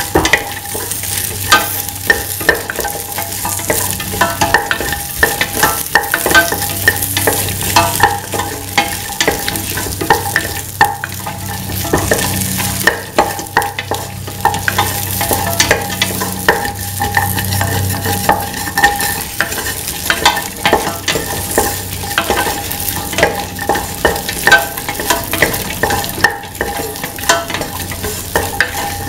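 Okra, shallots and ginger sizzling in oil in a stainless steel pan while a spatula stirs them, scraping and clicking against the pan many times. They are being sautéed until the okra's sticky slime cooks off.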